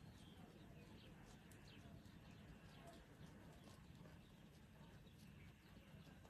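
Near silence outdoors, with faint small birds chirping now and then, mostly in the first few seconds.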